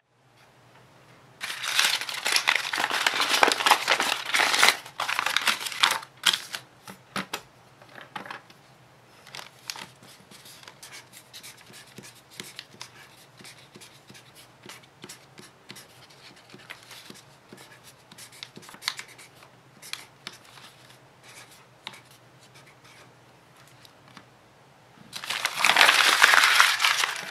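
A sheet of crumpled paper crinkling loudly as it is smoothed out, then a black marker scratching across the paper in many short strokes as it writes letters. Near the end the paper is loudly crumpled up again.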